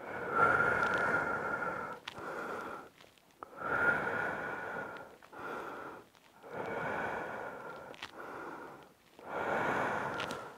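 A man breathing slowly and deeply through his nose and mouth while holding a seated side stretch: about four deep breaths, each a long breath followed by a shorter, quieter one.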